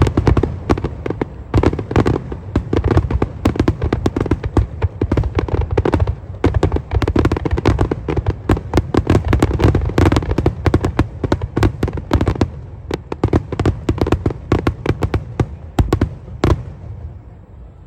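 Fireworks finale barrage: a dense, rapid stream of bangs and crackles that thins out about twelve seconds in and dies away about sixteen and a half seconds in.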